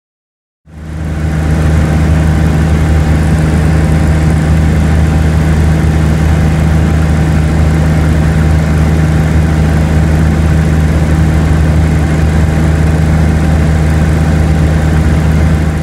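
Cessna 175 light aircraft's piston engine and propeller running at a steady, unchanging drone, cutting in suddenly about a second in.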